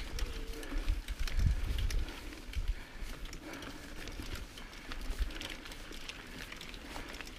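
Mountain bike riding along a dirt trail: tyres rolling and the bike rattling, with many small clicks, and wind gusting on the microphone in the first two seconds.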